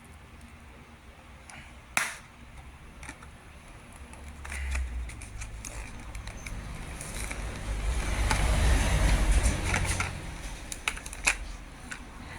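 Hot Wheels blister package being handled and opened: plastic and cardboard clicking, crackling and rustling, with a sharp snap about two seconds in. The rustling and handling noise grows louder in the second half, with scattered clicks near the end.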